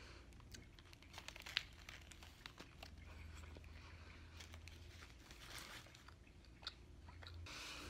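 Faint crinkling of a foil sandwich wrapper and chewing as a chicken biscuit is eaten, in scattered small crackles and clicks over a low steady hum.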